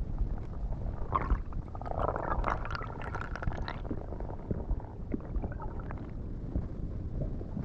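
Low, steady water rumble with gurgling bubbles, as picked up by a camera in the water while spearfishing; the gurgling is strongest from about one to four seconds in.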